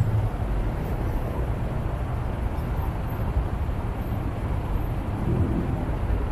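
Street traffic at an intersection: cars and vans driving past close by, a steady low noise of engines and tyres.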